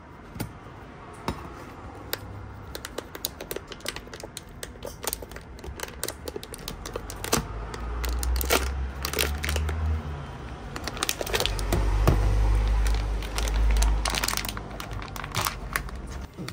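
Crinkling and rustling of foil and paper as a foil-wrapped baked sweet potato is pulled out of a metal tin canister and handled in its paper bag, after the tin's metal lid is pulled off. There is a steady run of small crackles, and a low rumble comes and goes twice through the middle.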